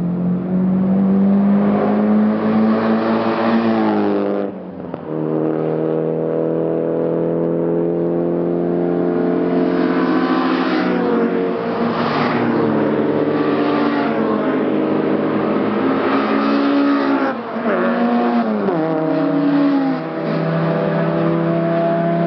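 Cars accelerating hard down a drag strip: the engine notes climb and drop sharply at each gear change, about four seconds in and twice more near the end.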